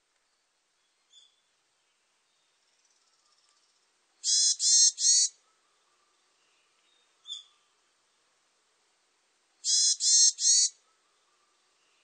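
Varied tit calling: two loud bursts of three harsh, nasal notes in quick succession, about five and a half seconds apart, each with a faint thin note a few seconds before it.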